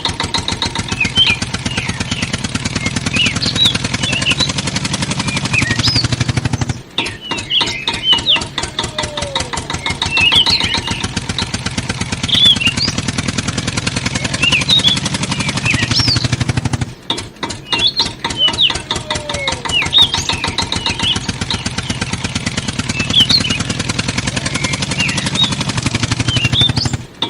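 Tractor engine sound running with a rapid, steady knock, with high chirps over it. The same roughly ten-second recording repeats, with short drops in level about seven and seventeen seconds in.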